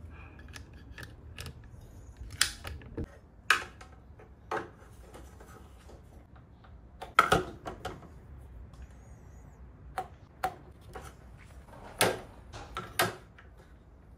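About a dozen scattered light clicks and knocks of handling a cordless jigsaw and a steel ruler against wooden boards on a workbench, over a faint low hum.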